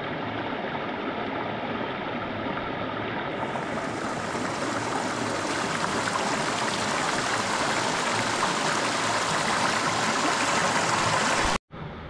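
Shallow rocky stream rushing over small cascades between boulders: a steady hiss of water that grows gradually louder and brighter, then cuts off abruptly near the end.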